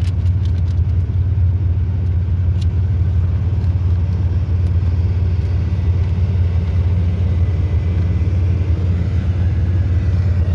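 Steady low rumble of a motor vehicle with its engine running, a constant drone with no change in pitch.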